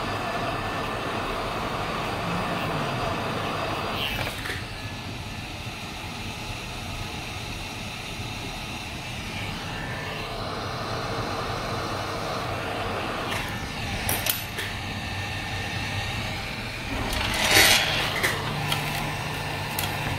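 Hot-air rework station blowing at maximum airflow over a laptop's AMD processor to reflow its solder balls: a steady rushing hiss. A few light knocks come through, and there is a brief louder burst of noise near the end.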